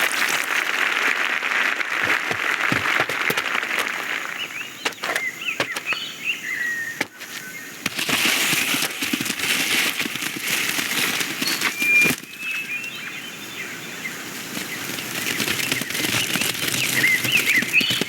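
A busy layer of animated-film insect sound effects: fluttering wings under a noisy haze, scattered sharp clicks, and several short chirping glides.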